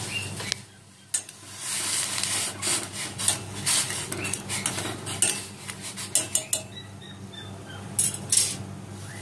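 A wooden utensil stirs pasta in a stainless steel pot of boiling water, knocking and scraping against the pot in irregular clicks from about a second in. The water bubbles and hisses underneath, over a steady low hum.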